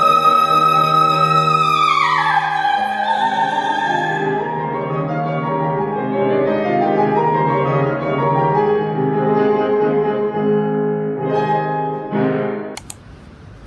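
Classical soprano singing with piano accompaniment. A long held high note slides down about two seconds in, then the singing goes on over the piano until it cuts off abruptly near the end with a click, leaving only low background noise.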